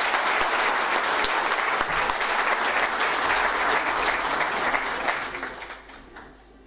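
Audience applauding, dying away about five to six seconds in.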